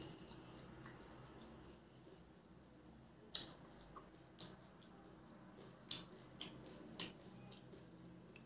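A puri dipped by hand into a steel bowl of pani water: about five sharp little clicks and taps against the bowl, the first the loudest, with faint dripping of water.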